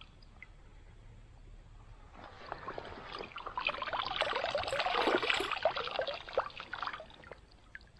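Water splashing and sloshing close by. It swells about two seconds in and dies away near the end.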